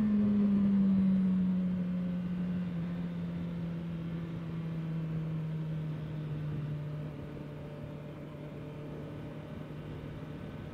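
Honda CBR650R's inline-four engine on the move, its pitch falling steadily for several seconds as the bike slows off the throttle, then holding an even pitch for the last few seconds.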